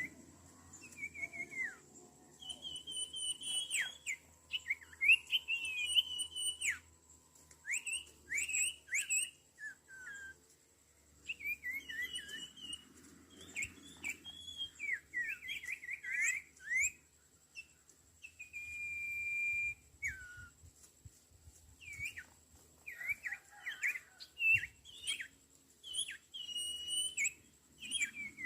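Ioras (sirtu, cipoh) calling over and over in quick whistled chirps that slide up and down, with one long, level whistle about two-thirds of the way through.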